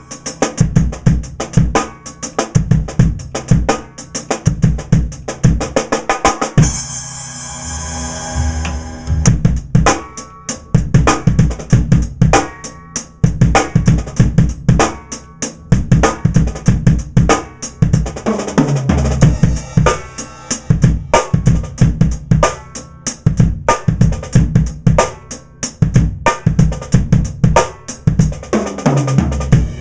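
Pearl Firecracker steel-shell snare drums, 10x5 and 12x5, tuned very high, played in quick grooves and fills with rimshots, over kick-drum hits. A sustained ringing wash sounds briefly about seven seconds in.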